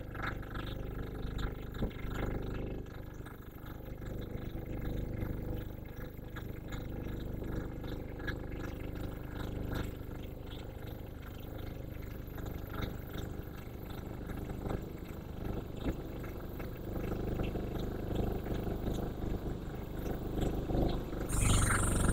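Diesel engine of an HR2-25 interlocking earth block machine running steadily with a low, even hum. It grows louder over the last few seconds, and a loud burst of noise comes near the end.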